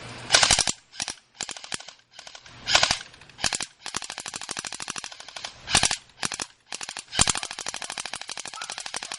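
A&K M249 SAW Para electric airsoft machine gun firing full-auto in a string of short and longer bursts. Each burst is a rapid, even clatter of shots, with brief pauses between bursts.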